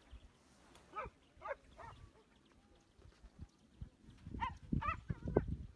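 Hunting dogs barking in the brush: three short barks about a second in, then a louder run of barks near the end, with low rustling close to the microphone under them.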